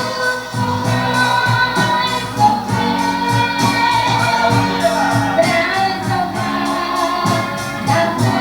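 Live gospel band music with a drum kit keeping a steady beat under guitar and other instruments, and a woman singing the melody.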